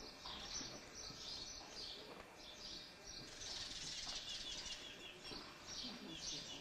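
Small birds chirping: a continuous run of short, high chirps that grows busier from about three seconds in.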